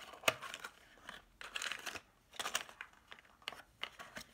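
Plastic packaging being handled off-camera: irregular crinkly rustles and small clicks, with several short bursts close together.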